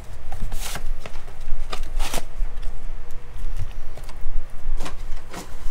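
Trading-card packs and their cardboard box being handled on a table: several short rustling slides and taps, over a steady low hum.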